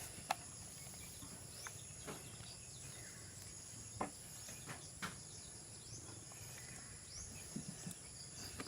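Faint steady insect buzz, with a few sharp clicks and knocks scattered through it and the odd short bird chirp.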